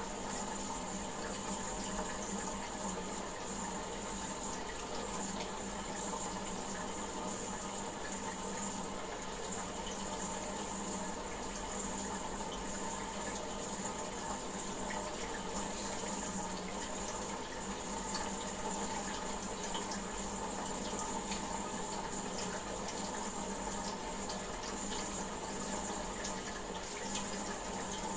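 Steady running water in a goldfish aquarium, with a faint constant hum beneath it.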